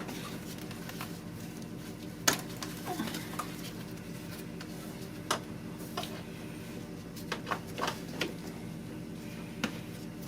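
The 2004 Infiniti FX35's 3.5-litre V6 running with a steady low hum, under a few sharp plastic clicks and knocks as the mass airflow sensor's electrical connector is worked loose by hand.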